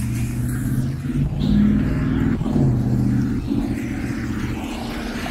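A car driving along a wet street: a low engine hum that shifts in pitch a few times, over the hiss of tyres on the wet road.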